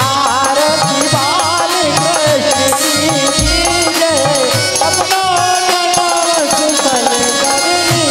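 Indian devotional folk music, a Krishna aarti, played live: a hand drum keeps a steady beat under a jingling rattle, with a melody line that wavers in pitch.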